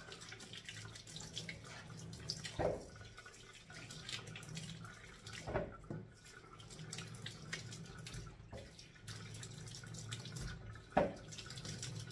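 Kitchen tap running into the sink while things are rinsed by hand, with a few sharp knocks of items handled in the sink and a low steady hum underneath.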